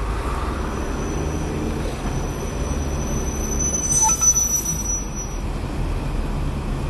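Car interior noise while driving slowly in town traffic: a steady low engine and road rumble. A thin high-pitched whine runs through it from about half a second in until a little past five seconds, with a brief click about four seconds in.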